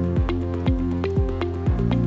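Upbeat electronic background music with a steady kick drum, two beats a second, under held synth notes.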